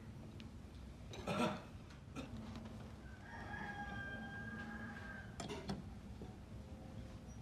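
A rooster crowing, one long drawn-out call about three seconds in. Two sharp knocks cut across it, the louder about a second and a half in.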